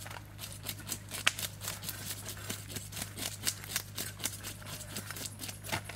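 Several knives scraping and scaling whole red fish on banana leaves and wooden chopping blocks: a dense run of quick, irregular scrapes and clicks, one sharper click about a second in, over a steady low hum.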